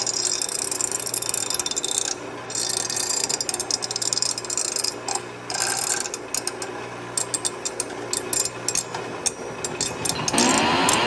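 Metal being worked on the pliers' jaw and a bolt: a harsh scraping rasp in spurts, pausing briefly about two seconds in, then a run of scattered clicks and rattles. Rock guitar music comes in near the end.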